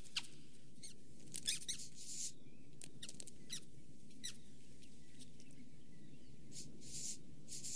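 Cartoon mouse squeaking in short, high-pitched chirps that come in scattered little bunches, over a steady low hiss.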